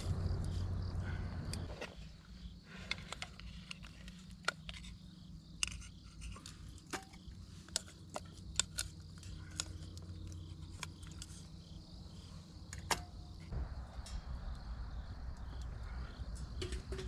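Irregular light clicks and knocks, scattered over several seconds, above a low steady rumble that falls away about two seconds in and comes back near the end.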